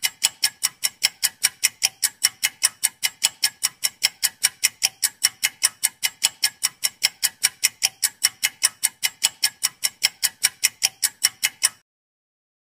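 Clock-tick sound effect ticking steadily at about four ticks a second, then stopping shortly before the end: a quiz countdown timer running while the viewer guesses.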